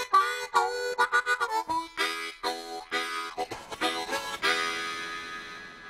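Harmonica music: a run of quick notes, then a long held chord from about four and a half seconds in that fades away.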